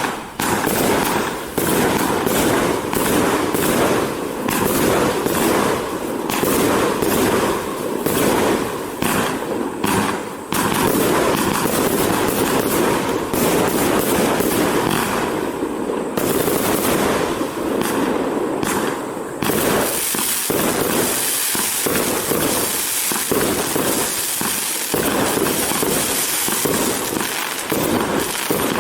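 Pyroworx Rapture 80-shot firework barrage firing, a rapid, unbroken run of shots and bursts. About twenty seconds in, a steady high crackling hiss joins the shots.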